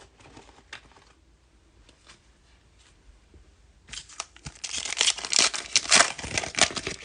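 A 2020 Topps Fire baseball card pack's wrapper being torn open and crinkled, loud from about four seconds in after a few faint clicks.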